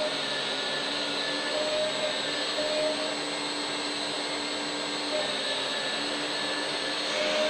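Electric hydraulic pump of a 1/14-scale RC hydraulic excavator running, a steady whirring hiss with faint tones that come and go every second or so.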